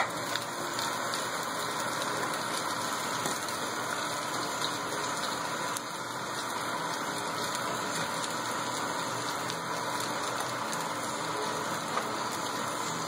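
Homemade waste oil furnace running steadily, its burner and blower giving an even rushing noise that dips slightly about six seconds in.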